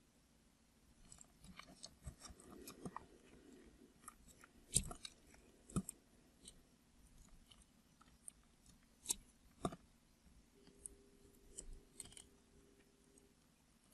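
Knife cutting through a bar of soap: scattered crisp cuts and clicks, the sharpest about five and nine seconds in.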